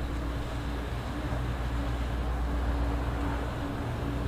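Ship's diesel engine running steadily: a constant low engine drone with a steady hum above it.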